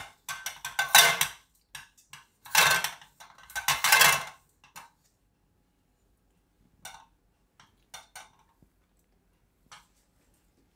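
Thin rolling pin rolling and clacking against a round rolling board as wheat-flour papad dough is rolled out, a run of quick strokes for about four seconds. After that only a few faint taps.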